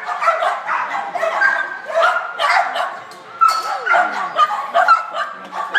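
Dog barking repeatedly in quick succession, several sharp barks a second.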